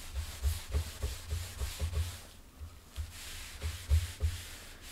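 A cloth wiped back and forth over an oil-finished solid wood tabletop, taking off the excess care oil: a run of rubbing strokes with soft low knocks, pausing briefly about halfway through.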